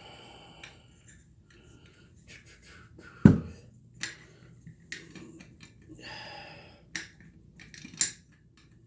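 Metal clicks, scrapes and clacks of a rifle bolt and round being handled in a 6.5 Grendel upper receiver, with one heavy metallic clack about three seconds in and a short scraping slide a few seconds later.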